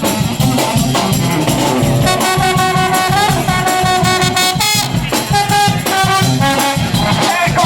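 Street brass band with drums playing live. Drum strikes run throughout, and held horn notes in harmony come in about two seconds in.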